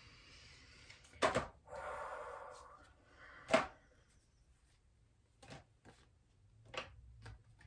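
Oracle card deck being handled and shuffled: two sharp taps about a second apart with a short rustle of cards between them, then a few faint clicks near the end.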